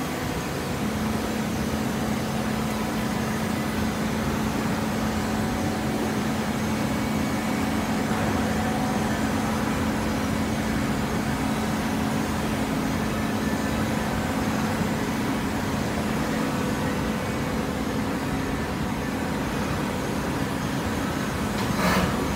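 Hydraulic cardboard baler's power unit running with a steady hum, and a single sharp clank near the end.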